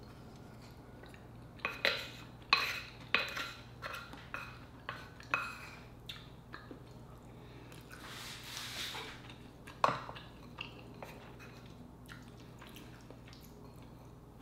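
Close-up eating sounds of sea urchin roe (uni) and rice taken with a wooden spoon: a run of sharp wet clicks and smacks in the first half, a soft breathy hiss about eight seconds in, and one more click near ten seconds.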